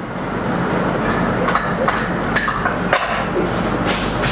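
Fried vermicelli and minced garlic sizzling in hot oil in a pot, with about half a dozen light clinks of a utensil against a pot or bowl in the middle. Near the end the sizzle grows louder as the pot is stirred.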